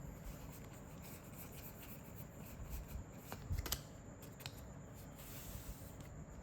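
Trading cards being handled and sorted into piles on a table: soft rubbing and sliding of card stock, with a few light taps in the middle as cards are laid down.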